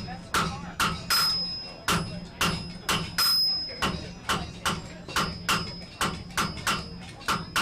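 Hand hammer striking hot iron on an anvil in a steady rhythm of about two to three blows a second, each blow with a short metallic ring.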